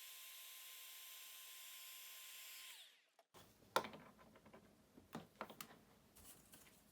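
Heat gun running on the wire splices, a steady airy hiss with a thin motor whine. Near three seconds in it is switched off and its whine falls away. A sharp click and a few light knocks of handling follow.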